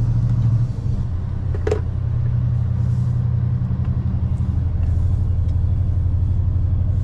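Scania log truck's diesel engine running at low revs, a steady low drone that dips briefly under a second in, with one short sharp click at about two seconds.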